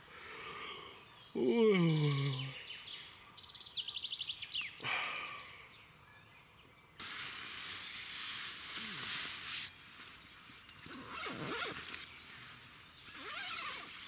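A man's long yawning groan, falling in pitch, about a second and a half in, then the rustle of a nylon sleeping bag and clothing as he sits up, in several loud spells. A brief rapid high ticking comes around four seconds.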